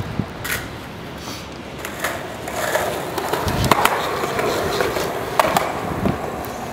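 Skateboard rolling on a concrete sidewalk, its wheels running with a steady rolling noise, broken by several sharp clacks of the board, the loudest about halfway through.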